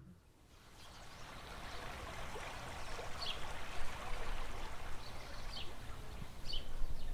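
Steady outdoor rush of running water, fading in over the first couple of seconds, with a few short high bird chirps scattered through it.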